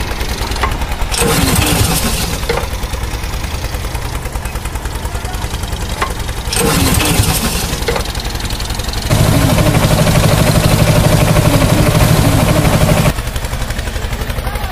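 Tractor engine sound with a fast, even chugging beat, rising in short revving spurts. Its character changes abruptly several times, and it runs louder and steadier for about four seconds in the latter half.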